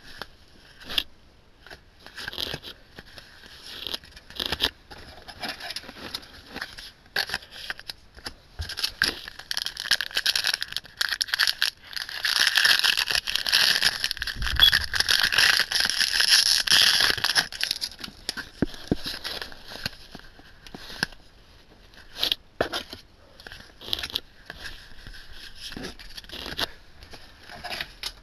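Yu-Gi-Oh! trading cards being flipped and slid against one another in the hands, a string of soft clicks and scrapes. In the middle, about five seconds of louder crinkling and tearing as a foil booster pack is opened.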